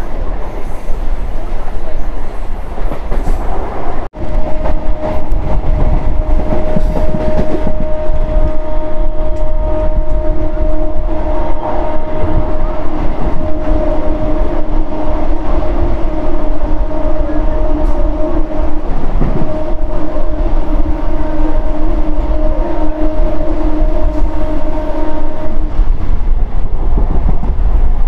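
Electric multiple-unit local train running at speed, heard on board from the open doorway: loud rumble and wheel clatter on the rails. From about four seconds in, a train horn sounds almost continuously as one long steady blast, breaking off briefly about two-thirds through and stopping shortly before the end.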